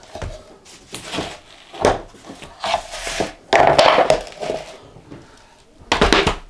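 Laminate flooring planks being lifted and handled by hand: scattered wooden knocks and clatters, loudest a little past the middle and again near the end.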